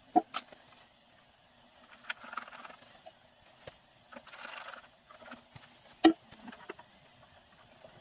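Handling noises of workshop tools and a rag: a few light clicks, soft scuffing and rustling, and one sharp knock about six seconds in.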